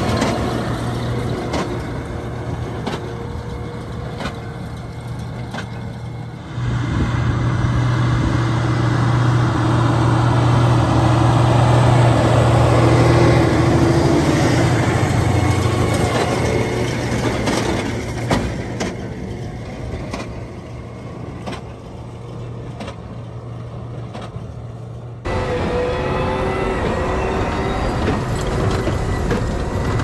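Fendt 939 Vario tractor and Claas Quadrant 5300 big square baler running while baling hay: a steady low engine hum with the baler's pickup and mechanism clattering over it. The sound jumps abruptly in level about six seconds in and again near the end.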